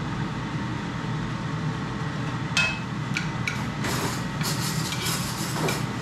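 Metal spoon clinking and scraping against a ceramic plate in a handful of short sharp taps, one with a brief ring, over a steady low background hum.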